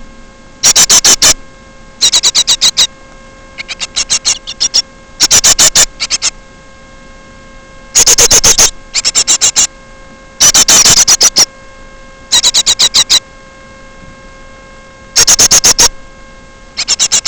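A bird calling in repeated short bursts of rapid, high chirping notes, one burst every two seconds or so. The bursts are loud enough to distort, and a steady electrical hum runs underneath.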